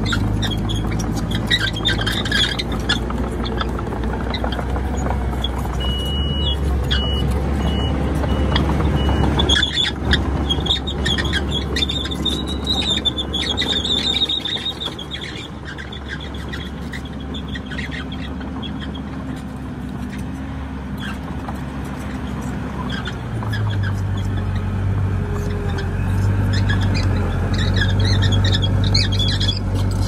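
Komatsu D31PX crawler bulldozer's diesel engine running under load, with high squeals from the tracks and running gear. A row of short high beeps comes about six to nine seconds in, and the engine grows louder near the end.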